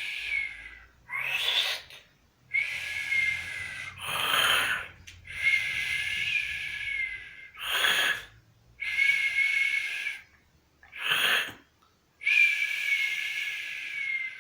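Man snoring heavily in his sleep: each breath is a long whistling wheeze followed by a short, rough snort, repeating about every three to four seconds.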